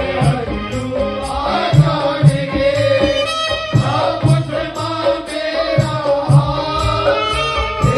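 Hindu devotional song of a Mata ki chowki: singing and held melody over a steady hand-drum beat of about two strokes a second, with small high percussion ticking along.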